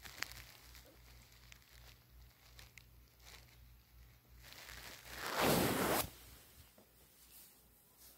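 Rustling noise: faint small clicks and rustles, then a loud rustle lasting about a second and a half just past the middle.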